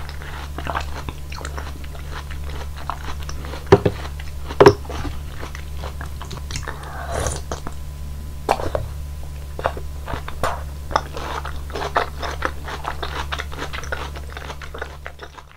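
Close-miked wet chewing of soft fruit pieces in juice, with many small moist mouth clicks. Two sharp, much louder clicks about four seconds in. A steady low hum underneath, and the sound fades out at the very end.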